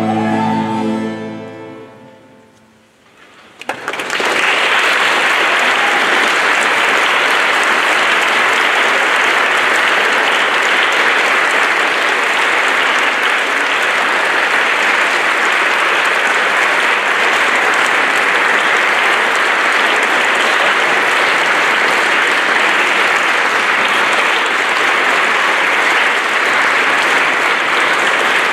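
Bowed string instruments hold a last chord that dies away over a few seconds; after a brief hush, audience applause breaks out about four seconds in and carries on steadily.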